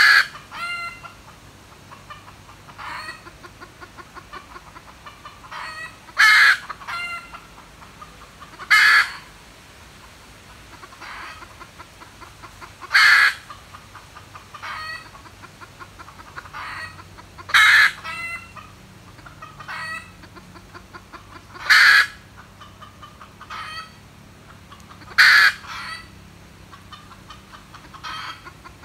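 Red junglefowl calling: a loud, short call every three to four seconds, with runs of soft, rapid clucking in between.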